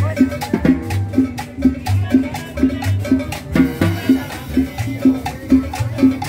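Latin dance music from a live combo: a steady beat of about two strokes a second over a bass line, with percussion.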